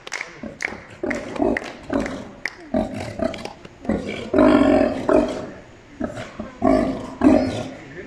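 Sea lion barking with loud, drawn-out calls. The two longest come about halfway through and near the end, after a few shorter ones.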